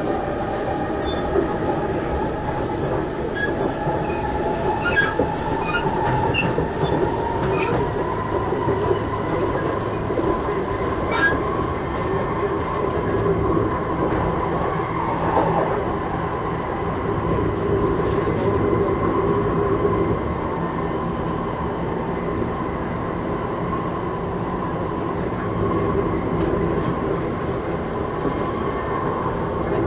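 Running noise of an MRT subway train heard from inside the carriage: a steady rumble of wheels and running gear, with a thin squealing tone from the wheels on the rails. Light clicks and rattles come through in the first ten seconds or so.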